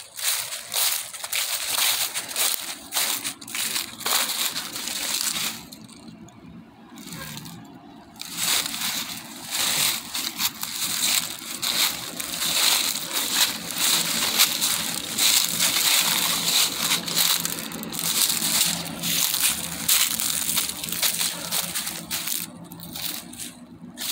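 Footsteps crunching through snow, a dense run of crunches that pauses for a few seconds about six seconds in, then carries on.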